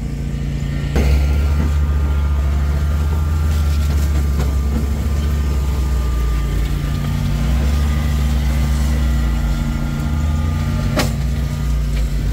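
Side-by-side UTV towing a Swisher rough-cut mower, engines running steadily as it drives through tall grass. About a second in the low engine hum gets louder and stays up. A single sharp click near the end.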